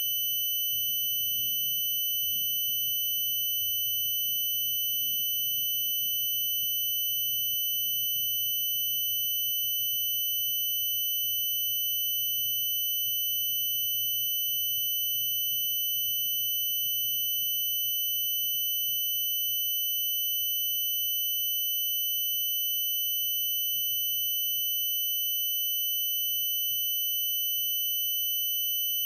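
A steady, high-pitched electronic tone that holds unbroken at one pitch, over a faint low rumble.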